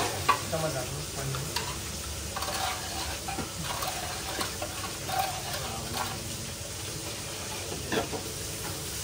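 A metal ladle stirring a large aluminium pot of curry, with scattered clinks of ladle and lid against the pot, a louder one right at the start, over a steady hiss.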